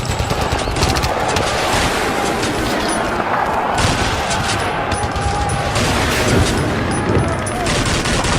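World War II battle sound effect: dense, continuous rifle and machine-gun fire crackling without a break.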